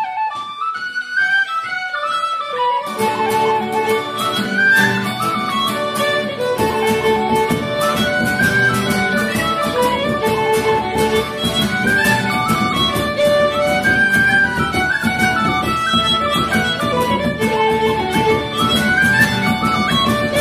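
Instrumental music: a single melody line for the first few seconds, then a steady beat and fuller backing come in about three seconds in, with a bass line joining a few seconds later.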